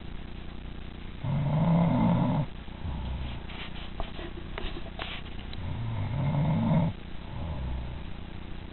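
A woman snoring loudly in her sleep: two long, rasping snores about four seconds apart, each followed by a quieter, shorter breath sound, with a few faint clicks between them.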